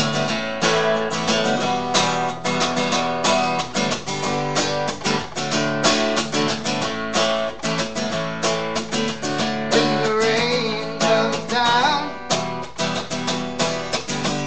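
Acoustic guitar playing a steady strummed and picked intro, with quick, regular note attacks throughout.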